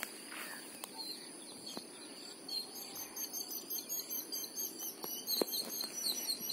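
Outdoor ambience of insects keeping up a steady high-pitched drone, with birds chirping repeatedly, busier in the second half, and a few faint clicks.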